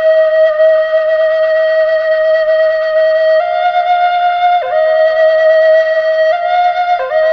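Flute melody of long held notes: one note held for about three seconds, then slow changes of pitch, with a second note sounding alongside from about halfway through.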